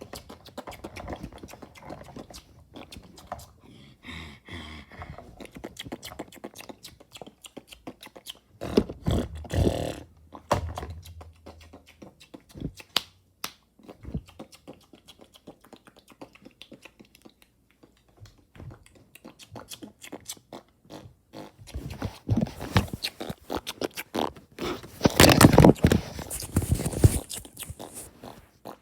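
Close-miked mouth noises made for ASMR: rapid wet clicks and smacks throughout, with two louder, longer stretches about nine seconds in and again near the end.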